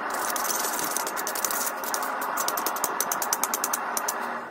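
Steel wire brush scrubbing a hot forged round steel bar on the anvil face: a harsh scratching made of rapid back-and-forth strokes, cleaning the scale off the metal. It cuts off suddenly near the end.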